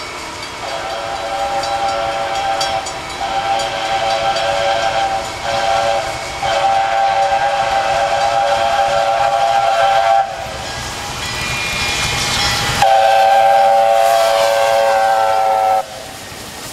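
Chinese QJ steam locomotive's chime whistle blowing a chord of several tones as the train approaches: two long blasts, a short one and a long one, the grade-crossing signal. After a gap filled by the rising noise of the approaching locomotive, another long blast sounds as it reaches the camera, its pitch sagging slightly as it passes.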